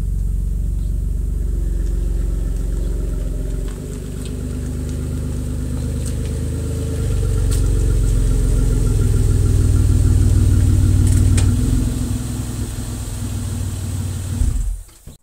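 Ford SUV engine running with no muffler fitted: a loud, low open-exhaust rumble. It gets louder about seven seconds in, eases again and cuts off just before the end.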